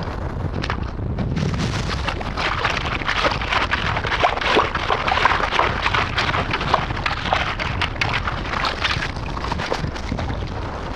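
Perforated stainless-steel sand scoop being swished and shaken in shallow water to sieve out the wet sand, water sloshing through it and grit and small stones rattling against the metal. The crackling is densest from about two seconds in until near the end.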